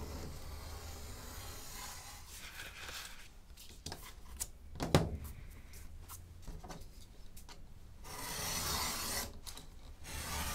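Utility knife blade slicing through heavy white paper along a steel ruler on a cutting mat: long scraping strokes, with paper shifting and rustling. A single sharp tap about halfway through is the loudest sound.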